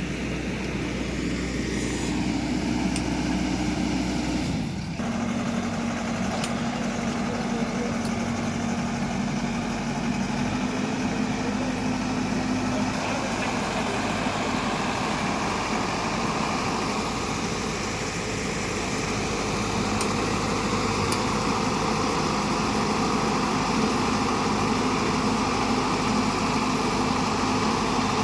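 Diesel engine of a tractor or harvester running steadily, its note stepping down a little about five seconds in.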